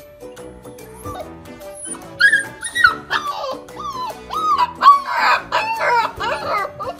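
Husky puppy howling in a string of short, high, wavering yowls, starting about two seconds in.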